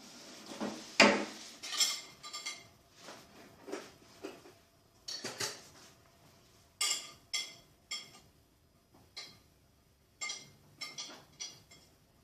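Kitchen utensils clinking against dishes: a string of about a dozen irregular, separate clinks and light scrapes, like a spoon tapping and scraping a bowl.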